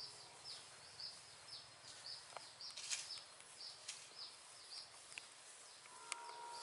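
Faint outdoor ambience with a short, high chirp that sweeps downward and repeats about twice a second, and a couple of faint clicks partway through.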